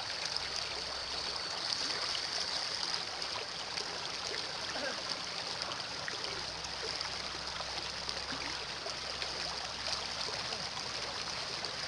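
Shallow river water flowing steadily, a constant rushing stream sound.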